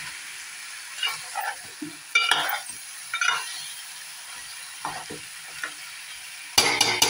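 A metal spoon stirring and scraping vegetables in a large aluminium pot, over a steady frying sizzle from the hot pot. Near the end the spoon clinks against the pot several times in quick succession, the loudest sound.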